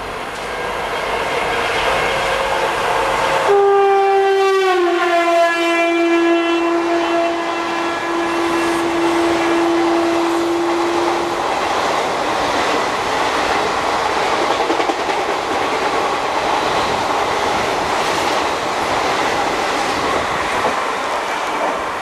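WCAM1 electric locomotive's horn: a fainter tone at first, then from about three and a half seconds in a loud, long blast that slides down in pitch and is held for some seven seconds. After it, the steady rumble and clickety-clack of the express's coaches rolling past.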